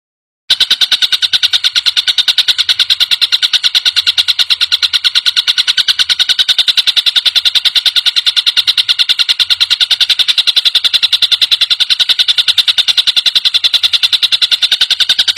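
Tengkek buto kingfisher giving a long, fast, even rattling call of rapid high-pitched notes, starting about half a second in and cutting off just before the end.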